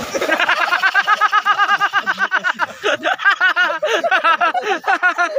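Several men bursting into loud laughter together, rapid overlapping peals of laughter that start suddenly and keep going.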